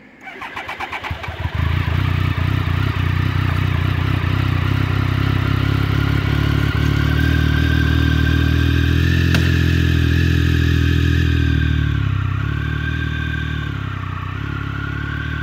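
Triumph Tiger three-cylinder motorcycle engine turned over by the electric starter for about a second and a half, then catching and running steadily at a fast idle. It settles a little lower near the end.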